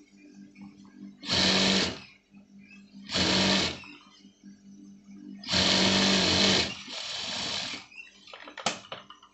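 Industrial lockstitch sewing machine stitching a jacket lining seam in three short runs. The first two last under a second each; the third is longer and eases off before stopping. A steady low hum fills the gaps, and a few light clicks come near the end.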